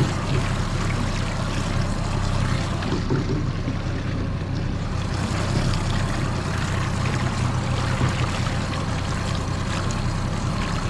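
Tiller-steered outboard motor running steadily at slow trolling speed, a constant low drone with water noise from the hull.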